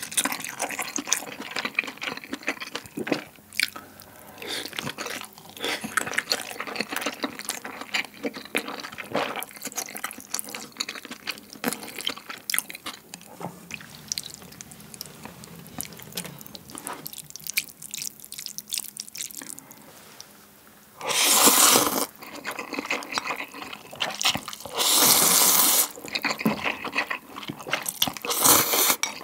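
Close-miked eating sounds: wet chewing of a steamed dumpling, then chopsticks working instant noodles in broth. After that come loud slurps of the broth-soaked noodles, about two-thirds of the way in, again a few seconds later, and once more near the end.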